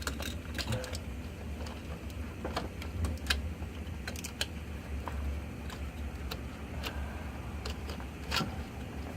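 Irregular light clicks and taps from plastic glow plug harness connectors and wires being handled and pushed into place, over a steady low hum.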